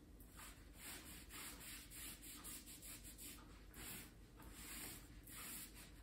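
Cloth rubbing over painted wood, applying white furniture wax in quick repeated strokes: faint soft swishes about two or three a second.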